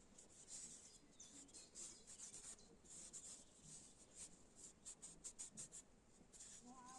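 Faint, quick rubbing or scraping strokes, several a second in uneven runs, like a hand working something back and forth over an abrasive surface.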